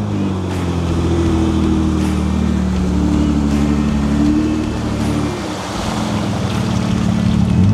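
Mercedes-Benz G-Class off-roader's engine working under load while driving over rough ground, the revs rising and falling. The revs sag about five seconds in and pick up again near the end.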